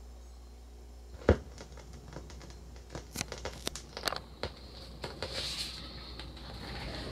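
Turntable stylus setting down on a vinyl record with one loud thump about a second in, followed by the crackle and pops of the lead-in groove over a steady low hum.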